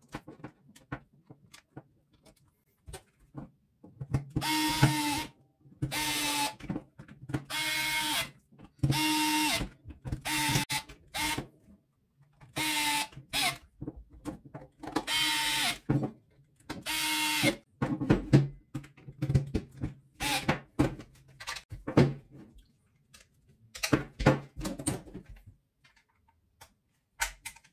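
Small cordless electric screwdriver driving screws into a plastic glue-gun housing, its motor whirring at a steady pitch in about ten short runs of a second or less. Light clicks and knocks of plastic parts being handled come before and after.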